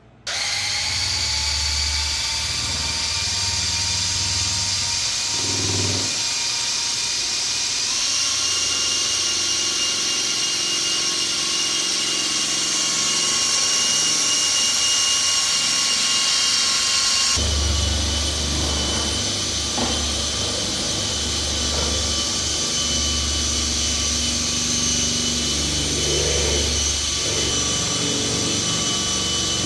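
An electric power tool's motor starts and spins up, then runs steadily with a high whine. Its tone changes abruptly twice.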